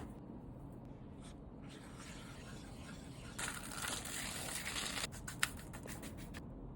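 Food-preparation handling noise: a stretch of rustling about three and a half seconds in, followed by a quick run of sharp clicks.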